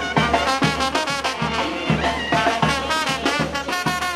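Murga brass band playing: trumpets and trombones on a lively melody over a steady drum beat.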